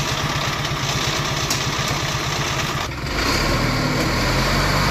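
Truck engine running steadily. About three seconds in it dips briefly, then runs louder and deeper.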